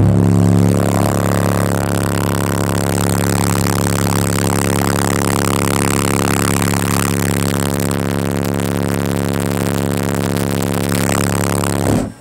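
Two Soundstream XXX 15-inch subwoofers, driven by Soundstream XXX 6500 amplifiers at a 1-ohm load, playing a 35 Hz test tone at full power inside a sealed truck cab. The tone is a loud, steady drone that starts at once and cuts off suddenly about twelve seconds later.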